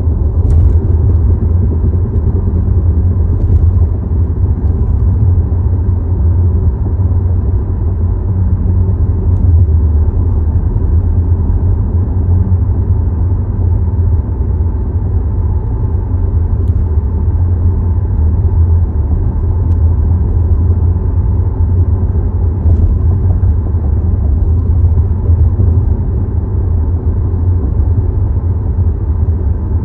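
Steady low rumble and vibration of a 2022 Volkswagen Tiguan SE R-Line: the vibration noise that its owner hears when start-stop is activated.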